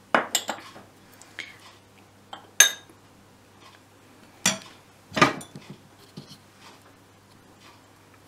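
Clinks and knocks of a metal spoon against a glass bowl and small dishes: a quick cluster of clinks at the start, then a few single sharp knocks spread through the rest.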